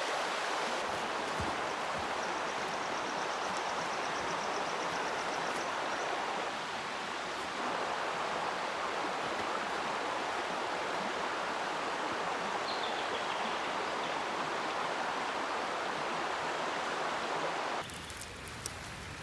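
River water rushing steadily over a shallow crossing, an even hiss of flowing water. It cuts off suddenly near the end, giving way to quieter surroundings with a few light clicks.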